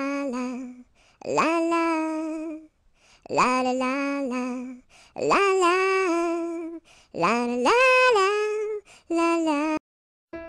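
A woman singing unaccompanied in six short sung phrases separated by brief silences. Piano chords come in just as it ends.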